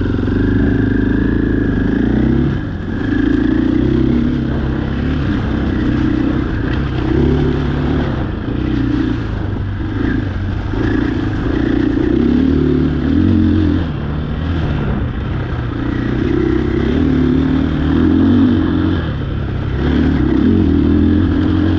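Off-road vehicle engine running hard as it is ridden, the revs rising and falling every second or two.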